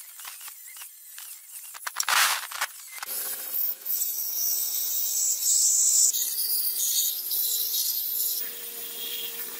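Angle grinder with a thin cut-off disc cutting notches into a steel knife blank in short strokes; then, from about three seconds in, a belt grinder's abrasive belt grinding the steel blade with a steady high hiss over the motor's hum.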